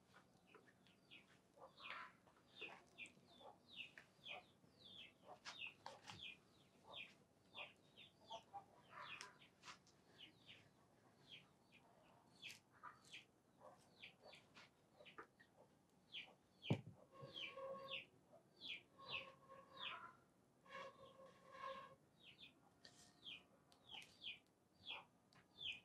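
Faint rural ambience: small birds chirping in quick, short notes throughout, and a chicken clucking in three short calls between about 17 and 22 seconds in. A single sharp knock sounds just before the chicken, the loudest moment.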